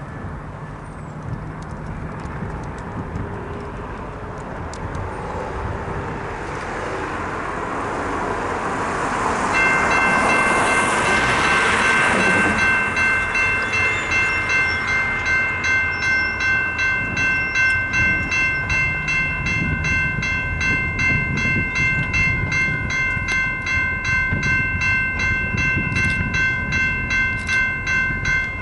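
A rising rush of noise, then a railroad grade-crossing warning bell that starts about a third of the way in and keeps ringing in rapid, even strokes as the crossing signals activate and the gate arms lower.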